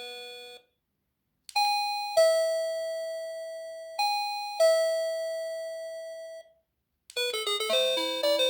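NX-5776-675 electronic doorbell chime playing a two-note ding-dong, a higher note then a lower one, twice, each ringing out and fading. A melody tune fades out at the start, and another melodic chime tune begins near the end.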